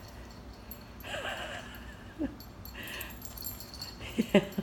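Dog making soft whining sounds, then two short, sharp yips near the end.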